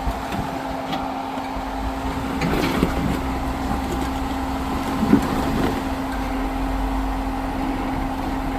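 An off-road vehicle's engine runs steadily at low speed, heard from inside the cab, with a couple of short knocks about three and five seconds in.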